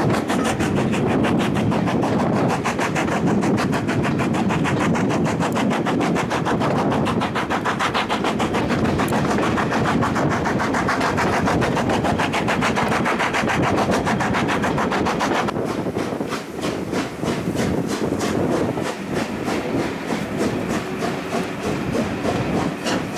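LMS Black Five steam locomotive 44871 running at speed, its exhaust beats coming in a fast, even rhythm together with the wheel-and-rail noise of the carriages, heard from an open carriage window. The beats turn sharper and clearer about two-thirds of the way through.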